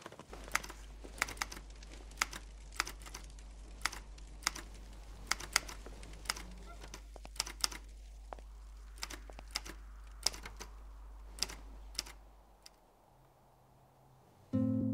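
Typing: sharp, irregular keystrokes, about two or three a second, over a low steady hum. The keystrokes and hum stop about twelve seconds in.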